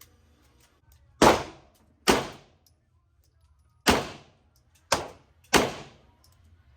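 Five gunshots fired at uneven intervals, two close together near the end, each loud crack followed by a short fading echo.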